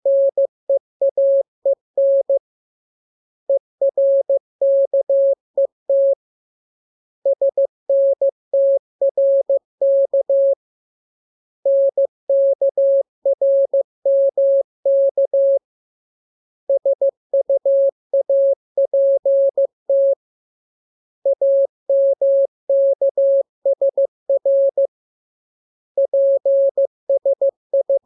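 Morse code sent as a single steady beep, keyed on and off in dots and dashes. Seven groups of characters are separated by pauses of about a second.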